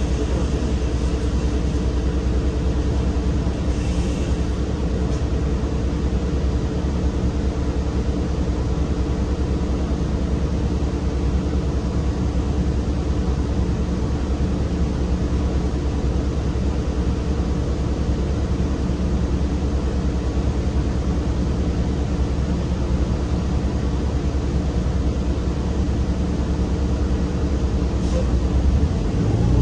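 Cummins Westport ISL G natural-gas six-cylinder engine of an Orion VII transit bus idling steadily, heard from inside the passenger cabin. Near the end the engine note rises and grows louder as the bus starts to pull away.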